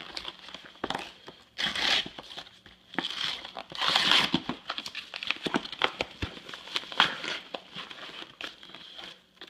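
Paper packaging crinkling and tearing as it is opened by hand, with louder rustles about two and four seconds in and scattered sharp crackles.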